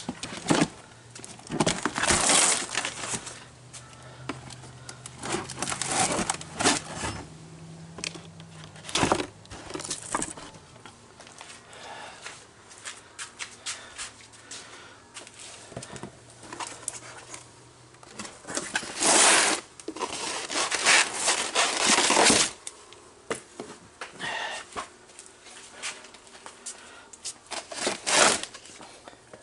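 Packaging being opened and handled: cardboard and plastic wrapping crinkling and tearing in irregular bursts, with a few louder stretches about two-thirds of the way through.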